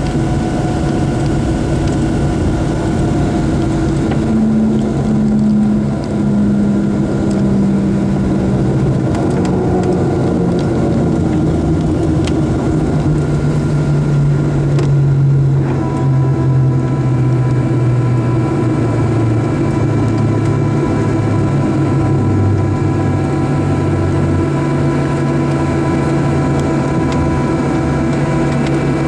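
Boeing 737-700's CFM56-7B engines heard from the passenger cabin as the jet rolls on the ground after landing: a steady, loud drone with low tones that slowly fall in pitch. About halfway through, a set of higher steady tones comes in and holds.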